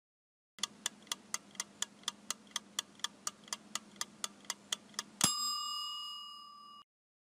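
Countdown timer sound effect: a clock ticking quickly, about four ticks a second, then a single bell ding that rings out and fades as the countdown reaches zero.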